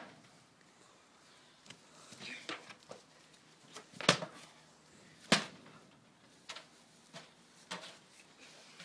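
Scuffle of two people wrestling on a grass lawn: a run of sharp hits and knocks, the two loudest about a second apart near the middle, with smaller ones before and after.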